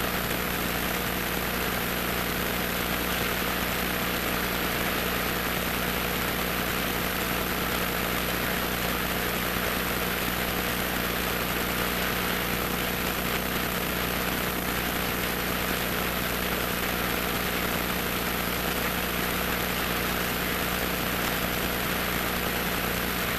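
Cessna 150's four-cylinder Continental O-200 engine and propeller running at a steady speed over a steady rush of noise.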